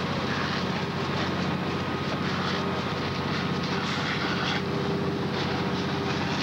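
Steady engine drone of fire apparatus running their pumps, under a rushing hiss of hose streams spraying water onto the fire.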